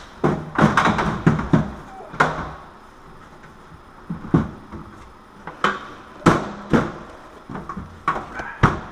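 Sheet-metal range hood knocking and clunking against the cabinet underside as it is worked onto its mounting screws: a quick run of knocks in the first second and a half, then single knocks every second or so.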